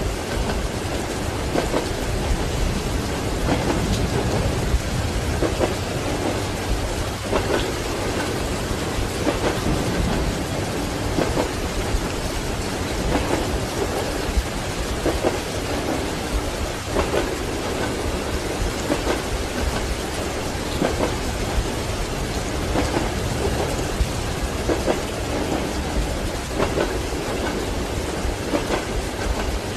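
Steady rain with rumbling thunder, over the low rumble of a moving train and the regular clack of its wheels on the rail joints, about one knock every two seconds.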